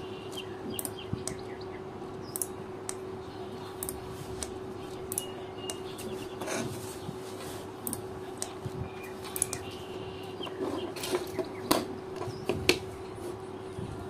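Sharp separate clicks of a 12 V single-channel relay module's blue sugar-cube relay switching on and off as the button of its RF remote is pressed again and again, the loudest clicks near the end. A steady low hum runs underneath, with birds chirping.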